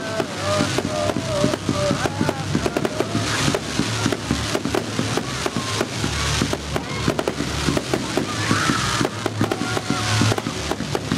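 Fireworks display: a dense, continuous crackling of many small pops from white crackle and glitter bursts, with heavier bangs underneath.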